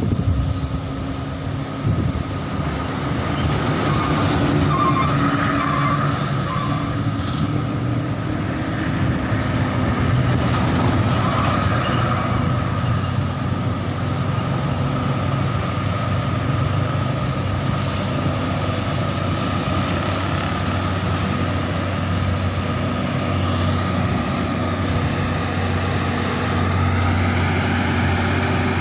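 Heavy trucks' diesel engines running on a steep hill road, a steady low drone. It grows louder near the end as a loaded Mitsubishi Fuso tractor-trailer approaches.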